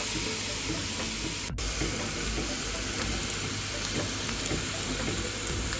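Pork loin steaks sizzling steadily in a closed electric contact grill, with a brief break in the sound about one and a half seconds in.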